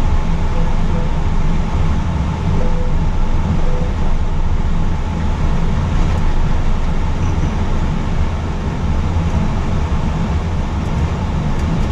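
Steady cockpit noise of an Airbus A320 taxiing: a loud low rumble under an even hiss from the idling engines, air flow and the rolling airframe.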